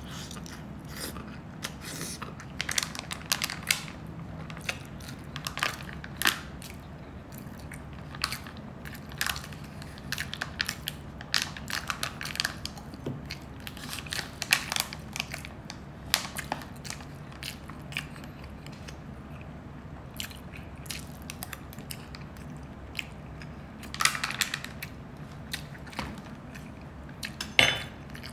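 Close-miked eating of Filipino street food: a person biting and chewing, heard as many irregular sharp clicks and smacks, with a couple of louder bites near the end. A steady low hum runs underneath.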